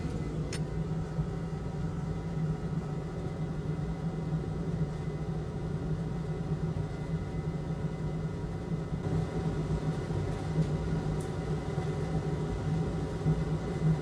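Steady low electric hum of running bench equipment, a fan or blower, with a couple of faint clicks.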